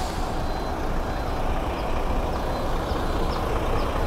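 Heavy truck's diesel engine idling: a steady low rumble.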